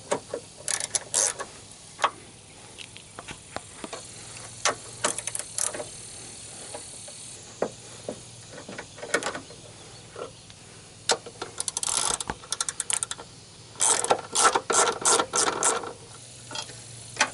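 Ratchet socket wrench clicking in quick runs as the 13 mm bolts holding a brace are loosened, with the longest, loudest runs in the second half.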